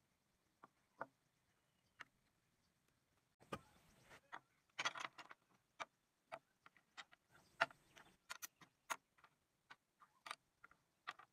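Small wooden model-tractor parts being set down one by one on a wooden workbench: scattered light clicks and knocks, with a couple of brief rustles as pieces are handled.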